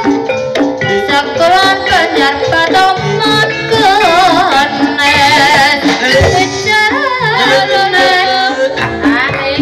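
Live ebeg accompaniment in Javanese gamelan style: steady pitched metallophone notes over repeated drum strokes, with a sung line wavering in pitch through the middle.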